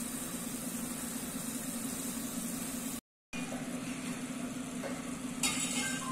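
Thick tomato jam bubbling and sizzling as it boils in an iron kadai, over a steady low hum. The sound drops out briefly about three seconds in, and a sudden louder noise comes near the end.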